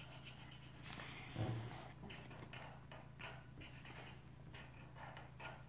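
A felt-tip marker writing on paper: a run of short, irregular scratchy strokes as letters are drawn, with a soft low thump about one and a half seconds in.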